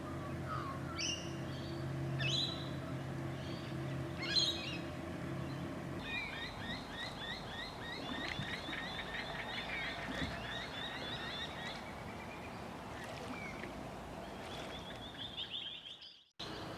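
Wild birds calling. Sharp falling calls repeat every second or two over a steady low hum, then many birds break into rapid chattering chirps, and a quick trill comes near the end before the sound cuts off.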